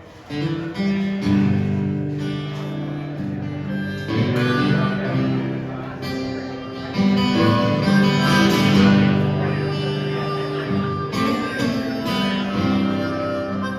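Acoustic guitar playing the instrumental opening of a slow blues song, with sustained chords and picked notes.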